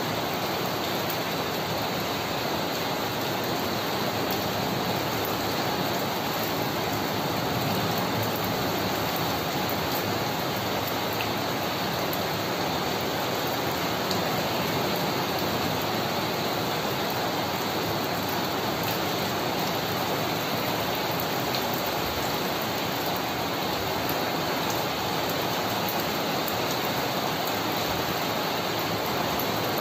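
Torrential rain pouring steadily onto paved ground and puddles.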